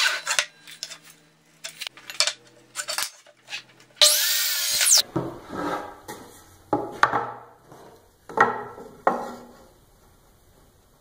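Task Force miter saw: the blade winds down at the end of a cut through a 1x6 board, then runs again in a second short burst of about a second. This is followed by several sharp wooden knocks as the cut boards are handled and set down on the bench.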